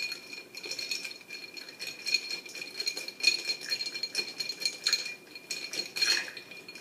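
Ice cubes clinking and rattling against a tall drinking glass as a drink is stirred with a drinking straw: a continuous run of small clicks, with a faint steady ring from the glass.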